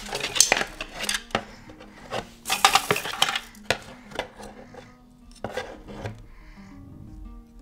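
Toys knocking and clattering together in a cardboard box as a toddler rummages, with a pair of wooden ball-headed mallets being pulled out. The knocks are irregular, with a dense flurry about two and a half seconds in, and they thin out near the end.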